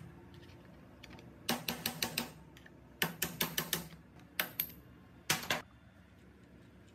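Hand tools clicking and tapping against metal engine parts in quick runs: about six sharp clicks around two seconds in, six more a second later, then two pairs near the end.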